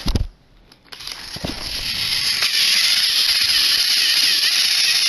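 Battery-powered toy train engines' motors and gearboxes whirring and grinding as the two engines push against each other on plastic track. A short thump at the start, then the motor noise comes in about a second later and builds to a steady level.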